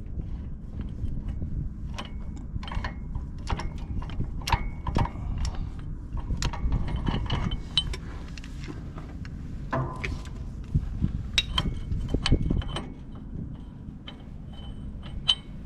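A hand ratchet clicking in irregular strokes as it turns the screw of a ball joint press, pressing a new track bar ball joint into place, with metal clinks from the tools. The joint goes in very easily.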